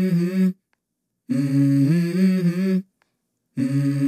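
Unaccompanied hummed vocal melody opening a pop song, in short phrases of about a second and a half with silent gaps between them.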